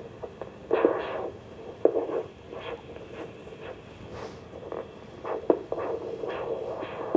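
Ultrasonic Doppler flow detector's speaker playing a dog's arterial pulse as repeated whooshing beats, with louder scratchy bursts as tape is pressed over the probe, the loudest about one and two seconds in.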